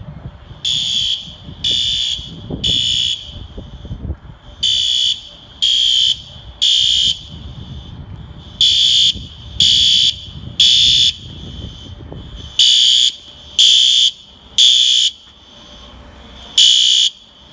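System Sensor fire alarm horn strobes sounding the temporal-3 evacuation pattern: three half-second horn blasts, a pause, then three more, repeating about every four seconds. The recorder takes it for a false alarm. A low rumble of background noise runs underneath.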